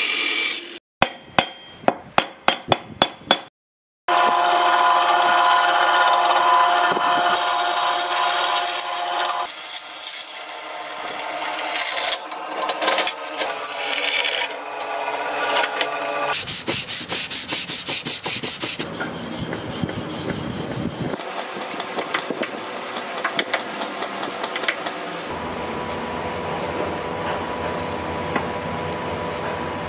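Steel being worked by hand and with shop tools: about eight sharp metal strikes in quick succession, then several cut-together stretches of steady rubbing and grinding on the blade steel.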